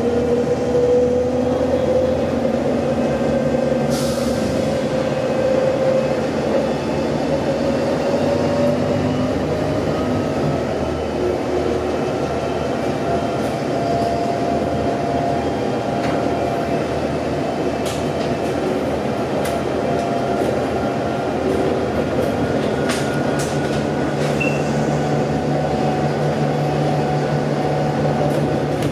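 Volvo B5TL double-decker bus on the move, heard from inside on the upper deck: the Volvo D5K-240 four-cylinder diesel and Voith Diwa automatic gearbox drone steadily, with whining tones that slowly shift in pitch and scattered light clicks and rattles from the body.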